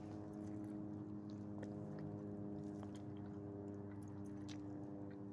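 A steady low hum with several even overtones, with faint scattered light ticks over it.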